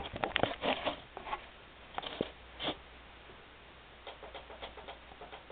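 Handling noise: scattered clicks, taps and rustles as a camera and an acoustic guitar are moved about, busiest in the first second, with a run of faint ticks near the end.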